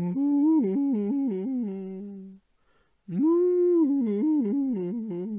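A man's voice giving two long, hummed, wavering cries, the pitch stepping up and down, in imitation of a crying cow.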